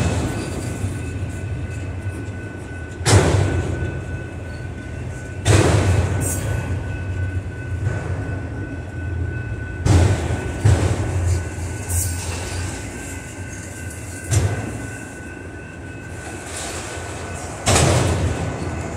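Freight train cars rolling past at close range: a steady rumble with loud clanks from the wheels every two to three seconds, each dying away slowly, and a faint steady high whine.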